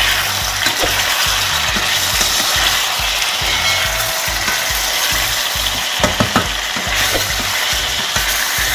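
Rabbit pieces and onion sizzling in hot olive oil in a stainless steel pot, being stirred with a wooden spatula as the meat is seared. Three quick knocks of the spatula against the pot come about six seconds in.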